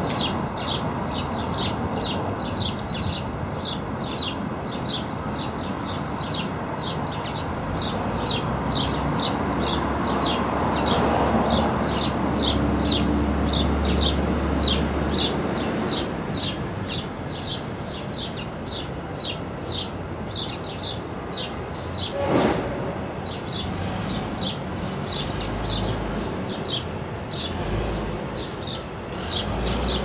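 A small songbird chirping over and over, short falling chirps at about three a second, with no break. Under it a low background rumble swells about a third of the way in, and one short sharp knock comes about three-quarters of the way through.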